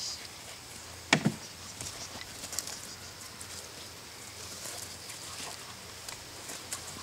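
Rottweiler puppy scampering through grass after a flirt-pole lure, a faint patter and rustle with scattered light ticks. A short, loud double thump about a second in.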